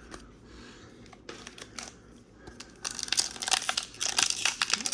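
Foil Pokémon booster pack wrapper crinkling and being torn open, starting about three seconds in, after a few faint clicks of card handling.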